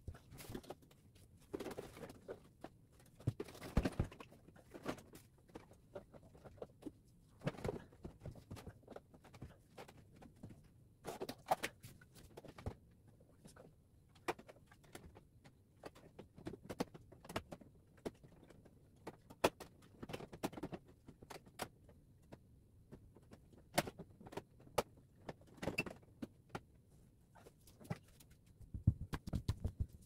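Irregular clicks, taps and light knocks of hands and tools working inside the base of a Samsung stand-type air conditioner's indoor unit.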